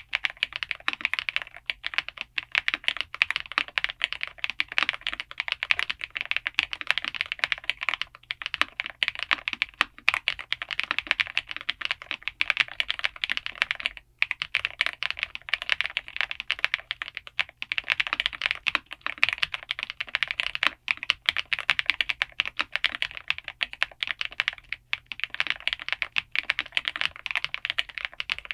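Fast, continuous typing on a Redragon Wyvern K761 Pro gasket-mount mechanical keyboard with Mint Mambo linear switches and thick PBT keycaps: a dense stream of key clacks broken by a few brief pauses.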